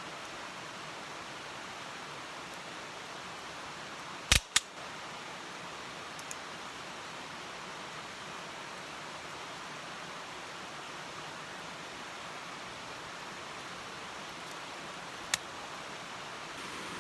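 Steady rushing hiss with three sharp pops: two close together about four seconds in and one near the end, typical of firewood cracking in a campfire.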